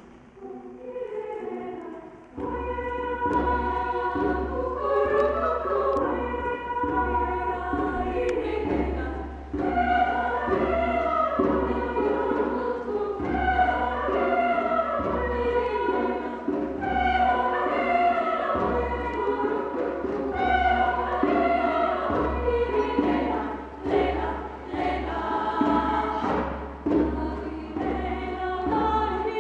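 A choir singing, swelling in loudness about two seconds in.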